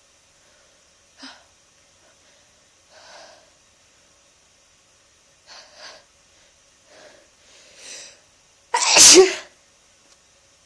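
A person with a bad head cold takes a few short, quiet, breathy breaths that build up, then lets out one loud, sudden sneeze near the end.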